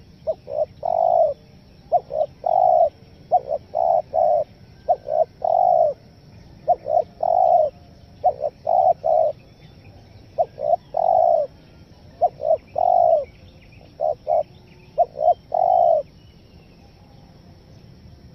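Spotted dove cooing in about ten repeated phrases. Each phrase is a few short, stuttering notes leading into one longer coo.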